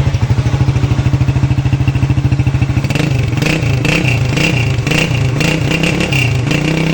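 Honda CG150 single-cylinder pushrod motorcycle engine running, first at a steady idle, then revved up and down from about three seconds in. It has a new camshaft and timing gears fitted to cure a loud cam-gear noise, which the mechanic says is now solved.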